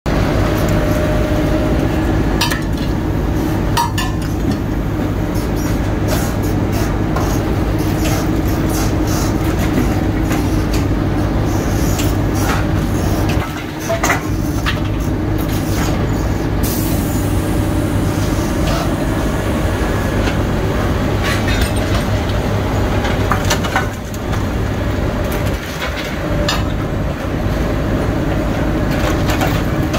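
Sennebogen scrap material handler working a pile of scrap metal: a steady low engine drone, with repeated sharp clanks and clinks of metal as the grapple grabs and drops scrap.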